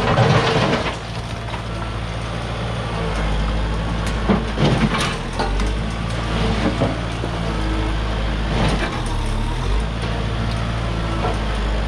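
Kubota tractor's diesel engine running steadily, with a few brief knocks over it.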